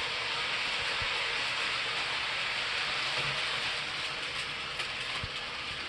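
Model train running on its layout track: a steady hissing roll with a few faint low knocks.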